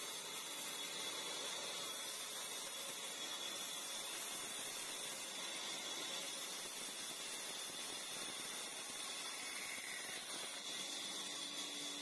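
Old sawmill bandsaw running and cutting lengthwise through a big dry log: a steady hissing rasp of the blade in the wood, with a constant high-pitched whine.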